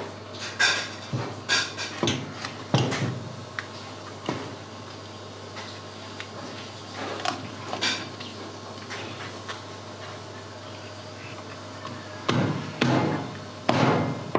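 Kitchen knife knocking and scraping against a wooden cutting board while cutting through a fish: irregular sharp knocks, with a cluster of louder ones near the end.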